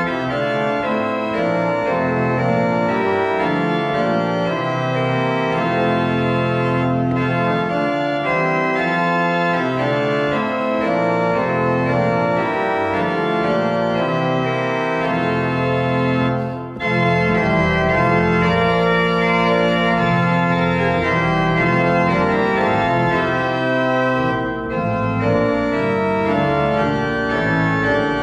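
Organ music: sustained chords moving from one to the next, with a brief break about two-thirds of the way through.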